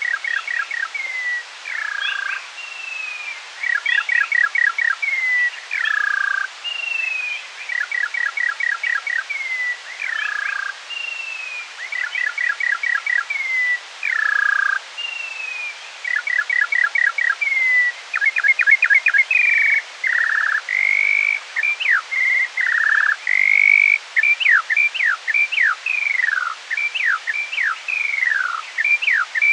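Skylark song played back at half speed, so lower and slower than in life. A phrase repeats every two seconds or so: a falling whistle, a quick run of short clipped notes, then a lower downslur. From about twenty seconds in the song turns into a fast stream of sweeping slurred notes, some rising and most falling.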